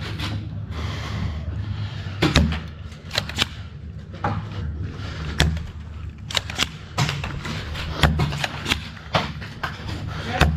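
Foam-dart blasters and gear in play during an indoor Nerf game: a string of sharp clacks and thuds at irregular intervals over a low rumble.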